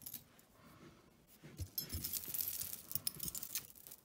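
Hands rummaging through a heap of costume jewelry: chains, beads and metal pieces clinking and rustling against each other, loudest through the middle.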